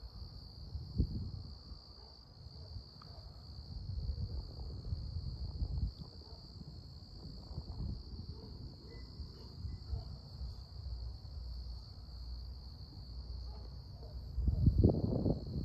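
Crickets trilling steadily on one high note, with irregular low rumbles underneath that swell loudest shortly before the end.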